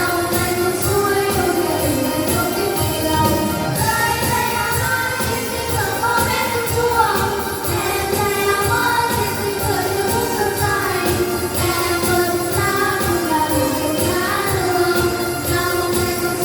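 A vocal group singing a Vietnamese spring song over an instrumental backing with a steady beat.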